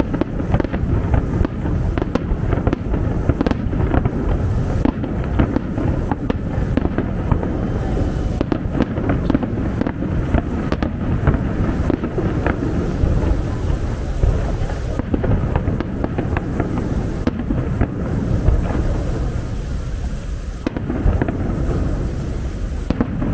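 Aerial fireworks display: shells bursting in a dense run of overlapping bangs and crackles.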